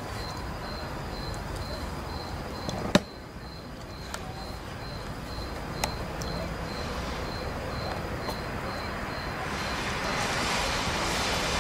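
Steady background hiss with a faint, high chirp repeating evenly about twice a second, and two sharp clicks, about three and six seconds in. The hiss grows louder near the end.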